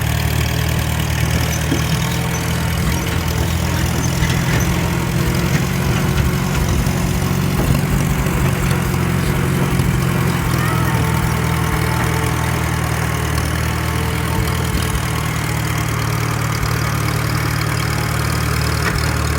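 Engine of a farm vehicle idling steadily, a constant low hum.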